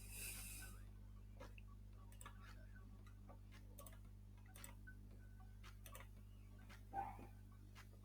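Faint, irregular computer mouse clicks over a low, steady electrical hum, with one slightly louder short sound about seven seconds in.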